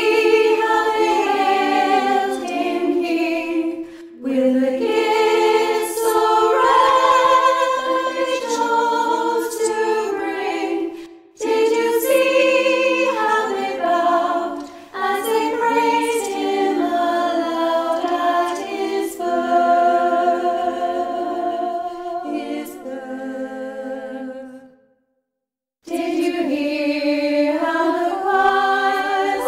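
Women's choir singing a cappella in several parts, with short breaks between phrases and a pause of about a second near the end before the singing starts again.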